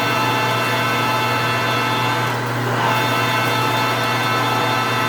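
Precision Matthews 1640 metal lathe running under load while a large twist drill, fed from the tailstock, bores into a cold rolled steel billet: a steady hum with many fine whining tones from the motor and gearing.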